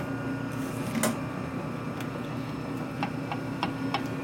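Machine tool running with a steady hum while the cutter is fed deeper into the part, with scattered light clicks, a cluster of them in the last second and a half.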